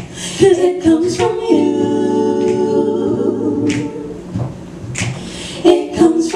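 Women's voices singing a cappella, a lead and a backing singer together, holding one long note in the middle, with several sharp clicks over the singing.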